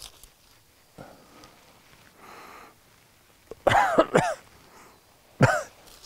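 A man's short non-word vocal sounds, a cough or throat-clearing: a faint breath a little before the middle, then two quick voiced sounds about two-thirds through and one more near the end.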